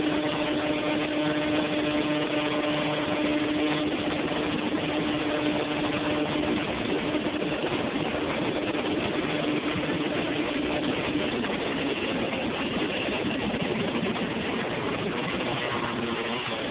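Honda TRX250R's single-cylinder two-stroke engine running at a steady cruising speed on the road, under a heavy rush of wind and road noise. Its note holds steady for most of the time, then wavers for the last few seconds.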